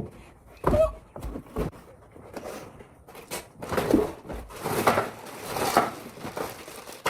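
Scattered thumps and knocks, about five over several seconds, with quiet gaps between them.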